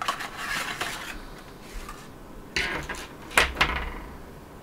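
Hands handling the contents of a craft kit: a rustle of packaging for about a second, then a brief scrape and two sharp knocks close together.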